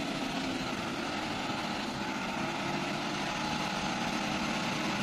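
A motor vehicle engine running steadily, a constant hum with no clear revving or change in pitch.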